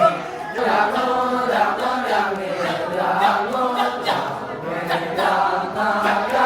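Chorus of many voices chanting together without a break, the vocal accompaniment of a Balinese temple dance performance.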